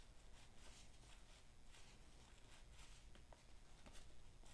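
Faint, soft swishes and ticks of cardboard trading cards being slid one behind another in the hands, over near silence.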